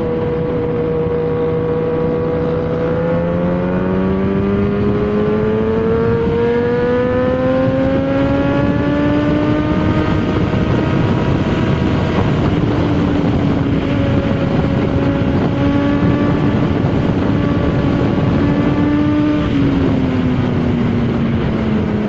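Motorcycle engine pulling at speed, its pitch rising slowly for about ten seconds as it accelerates, then holding steady and dropping away near the end, over heavy wind rush.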